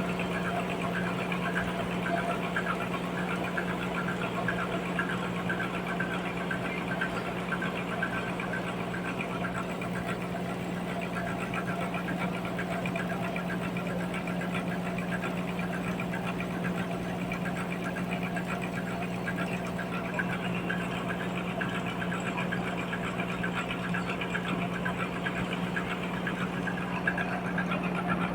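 Sawmill machinery running at a steady speed: a constant low hum with a rougher, busier layer above it.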